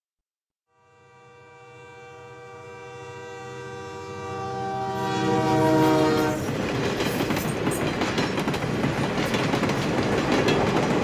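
A train horn sounds one long held chord that swells louder as the train approaches. A little past halfway the horn stops and the loud rumble and rapid clatter of the passing train take over.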